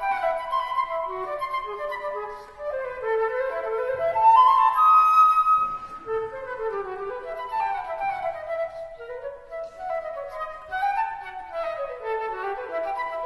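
Background music: a flowing flute melody over accompanying instruments.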